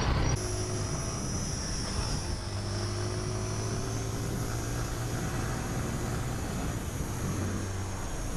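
Motorcycle running steadily under way, its engine hum mixed with road and wind noise, with a thin high whine above it.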